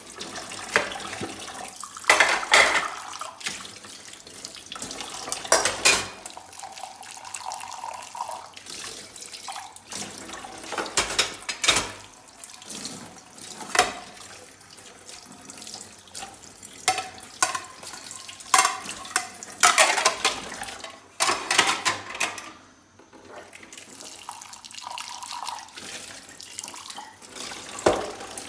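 Tap water running and splashing into a sink while dishes are washed, with frequent irregular clinks and clatter of dishes knocking together.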